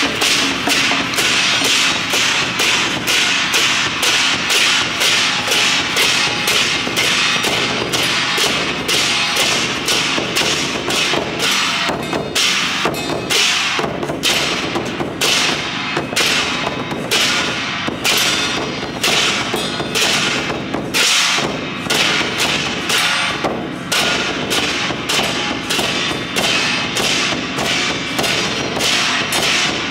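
Temple-procession percussion: drums and cymbals struck together in a steady, fast beat of about three strikes a second, with a brief thinning of the beat around the middle.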